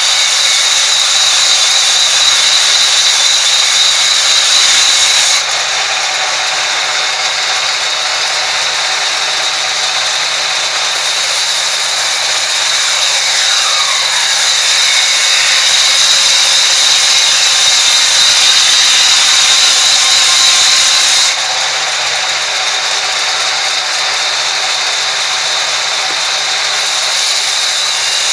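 Sawmill band saw running and ripping a timber beam lengthwise: a loud, steady mechanical noise with a constant high whine, which drops in level suddenly about five seconds in and again near the end.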